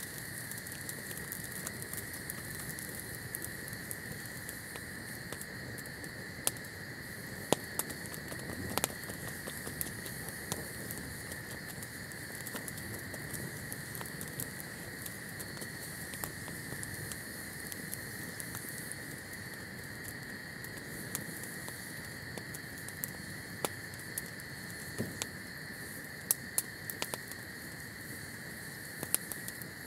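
Campfire of dry twigs and grass burning and crackling, with sharp pops scattered through it, clustering about a quarter of the way in and again toward the end.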